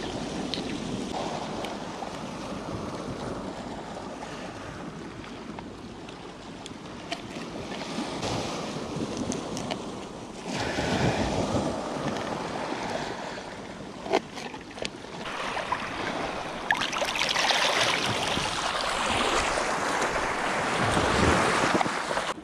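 Sea waves washing on the shore, rising and falling, with wind on the microphone and a few sharp knocks, the loudest about 14 seconds in.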